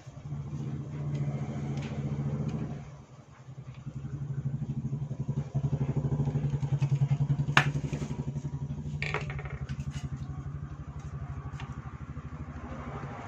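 An engine running with a fast, even pulse, dipping briefly, then swelling and slowly fading, with two sharp clicks a little past halfway.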